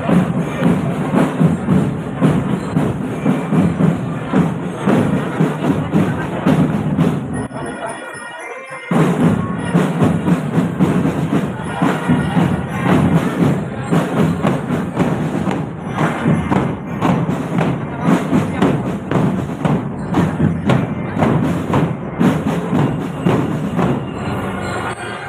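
Military cadet drum band playing: dense marching drumming with bass drums. The drumming drops out briefly about eight seconds in, then resumes.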